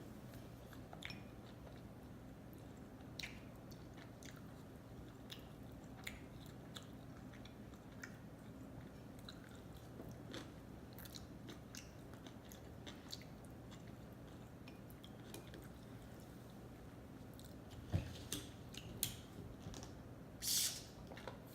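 Close-up mouth sounds of someone chewing sushi: soft, wet clicks and smacks, with a few louder bites and smacks near the end.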